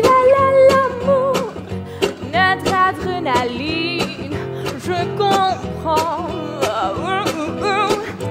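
A teenage girl singing a solo song over instrumental accompaniment, with vibrato on her held notes.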